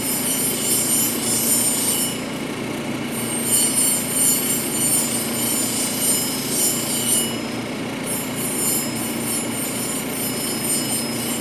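A stone cabochon on a dop stick being ground against the 600-grit diamond wheel of a lapidary cabbing machine. The motor hums steadily, and a high grinding whine comes and goes as the stone is worked across the wheel.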